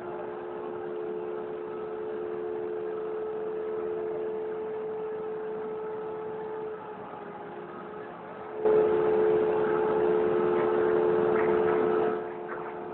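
CNC machine running with a steady motor whine. Just past halfway it gets suddenly much louder and harsher for about three and a half seconds, then drops back to the steady whine.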